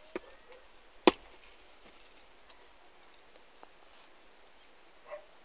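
Two sharp knocks of stone masonry work, a stone being struck or set against stone, about a second apart, the second much louder.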